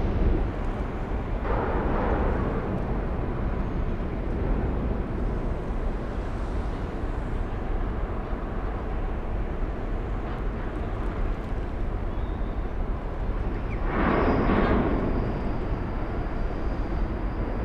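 Steady low rumble of a ro-ro passenger ferry's engines as it sails away. Two brief swells of louder, fuller noise come about a second and a half in and near the end.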